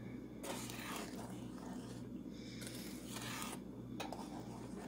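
Wooden spoon stirring a thick caramel mixture in a stainless steel saucepan: soft scraping sweeps against the pot, about three strokes with short pauses between, over a faint steady low hum.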